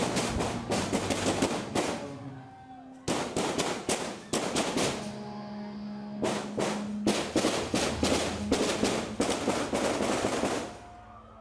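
Three long bursts of rapid automatic rifle fire inside a packed concert hall, the shots echoing. A steady low hum carries on underneath. The firing stops just before the end.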